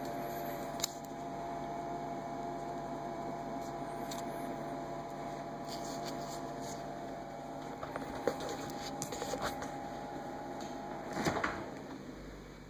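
Samsung refrigerator running with a steady hum and whine, with a few clicks about eight to nine seconds in and a louder clatter near eleven seconds, after which the hum dies away.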